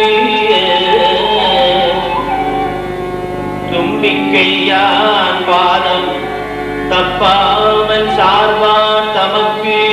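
Live Carnatic-style devotional music: a man singing to his own harmonium with violin accompaniment, a steady harmonium drone under gliding vocal and violin lines.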